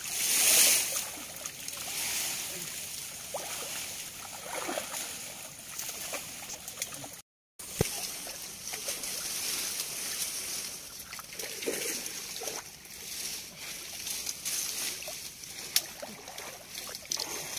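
Muddy shallow water splashing and sloshing as people wade through it and drag leafy branches and a fine-mesh net, loudest in the first second. The sound drops out completely for a moment about halfway.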